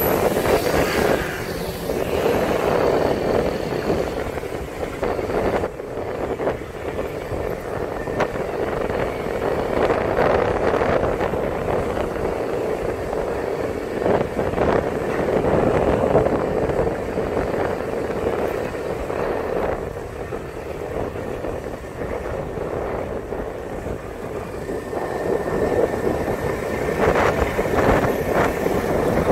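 City street traffic heard from a moving vehicle: a steady, swelling mix of engine and tyre noise from cars and motorbikes, with wind on the microphone.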